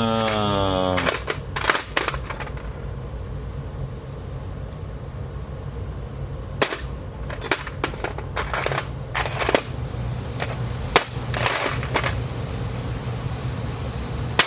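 Small metal sewing machine presser feet clicking and clinking as they are picked through and set down by hand, a dozen or so sharp clicks spread irregularly, over a steady low hum.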